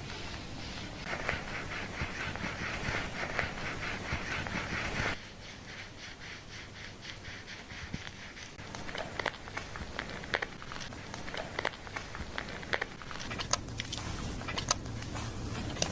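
Fingers scrubbing a shampoo-lathered scalp during a hair wash. Quick, dense rubbing over a hiss cuts off suddenly about five seconds in, followed by slower scratching and the crackle of foam.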